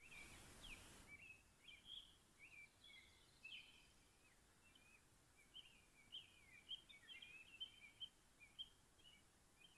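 Faint songbird song: a steady string of short, high chirps and warbling phrases.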